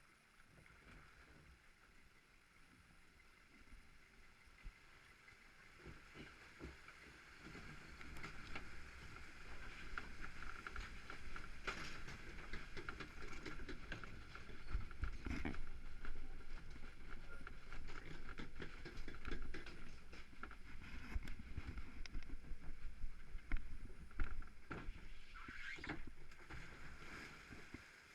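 Log flume boat floating along the water channel: rushing, sloshing water around the boat with scattered knocks. It grows louder about a third of the way in.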